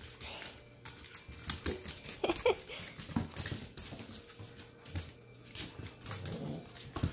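Small dogs playing tug with a rope toy on a wooden floor: a busy run of clicks and scuffles, with a brief dog vocalisation about two and a half seconds in.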